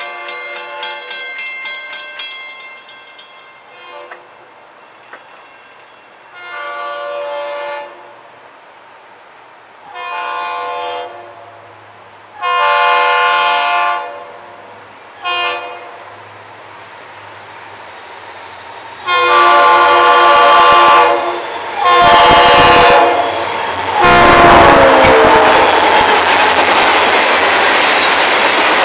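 Diesel freight locomotive horn sounding a series of long and short blasts that grow louder as the train approaches. The train then passes close by as a loud steady rumble, with the clickety-clack of freight cars on the rails.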